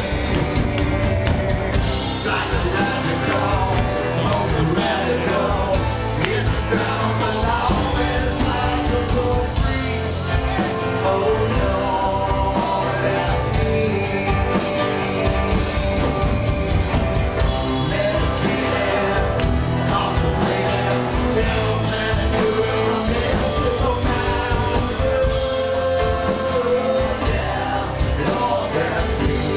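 Live rock band playing an original song, acoustic and electric guitars over a drum kit, with voices singing along.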